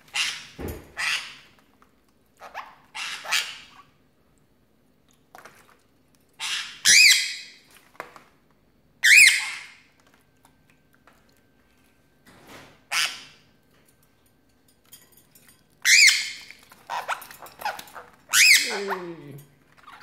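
Pet parrots, a cockatiel and a sun conure, squawking: about five loud, sharp screeches that each sweep up and back down, with softer chirps between them.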